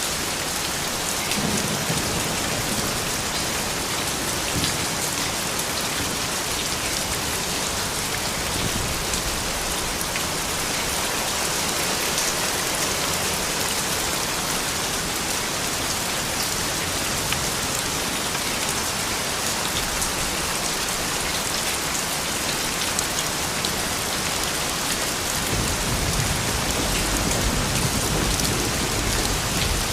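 Steady rain falling on a surface, with individual drops ticking through an even hiss. A low rumble comes in near the end.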